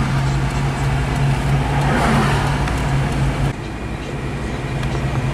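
Steady engine hum and road noise heard from inside a moving car, with oncoming traffic passing. The level drops suddenly about three and a half seconds in, then slowly builds again.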